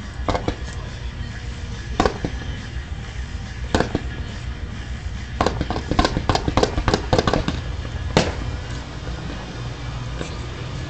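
Fireworks display going off: scattered single bangs, then a rapid volley of about eight reports around the middle, and one last bang, over a steady low background rumble.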